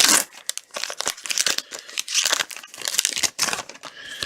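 Crinkling and tearing of a foil trading-card pack wrapper being handled, in irregular bursts with small clicks.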